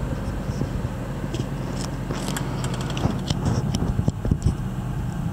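1999 Jaguar XK8's 4.0-litre V8 idling steadily, heard from inside the cabin. A run of sharp clicks and scrapes comes from about a second and a half in until past four seconds.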